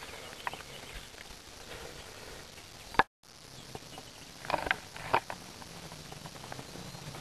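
Quiet outdoor background with scattered faint ticks and clicks. About three seconds in, a sharp click and a brief cut-out of all sound mark the camcorder's recording being stopped and restarted. A few more clicks follow a second or two later.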